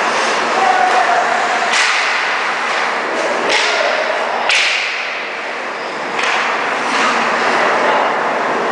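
Ice hockey play close by: skates scraping the ice under a steady rink din, broken by sharp cracks of sticks and puck. There are three loud cracks in the first half, the loudest about four and a half seconds in, and softer ones later.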